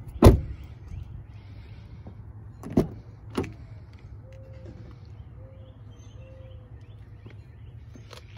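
A 2021 Cadillac XT5 door shuts with a solid thump about a quarter second in. A couple of seconds later come two lighter clicks of a door handle and latch as the next door opens, over a low steady hum.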